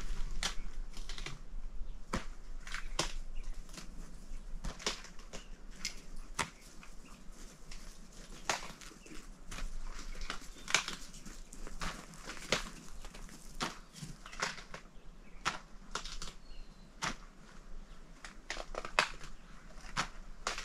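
A Great Pyrenees chewing cabbage leaves and stems: irregular crisp crunches, several a second with short pauses between.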